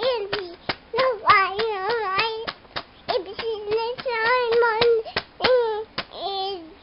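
Baby babbling in drawn-out, high, wavering vowel sounds, with many sharp slaps of her hands in between.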